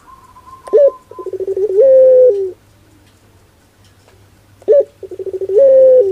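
Puter pelung (ringneck dove) cooing twice. Each call opens with a short rising note, runs into a fast rolling trill, then holds one long coo that drops in pitch at the end.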